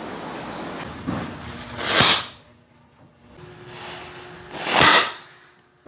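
Match-head-charged paper cannon firing twice, about three seconds apart, each shot a short loud burst. A steady hiss runs before the first shot.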